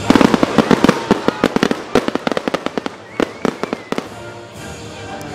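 Rapid barrage of aerial fireworks going off, a fast string of sharp bangs and cracks, densest in the first second and thinning out until it dies down about four seconds in.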